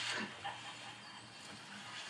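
A horror short film's soundtrack played over cinema speakers: a brief sound falling in pitch right at the start, then fainter sound over a steady low hum.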